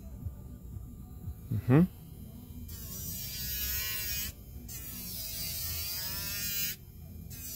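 Electric nail drill with a filing bit grinding down the length of a long gel nail: a motor whine that wavers in pitch as the bit presses on the nail, starting about three seconds in and breaking off briefly twice. A short thump a little under two seconds in.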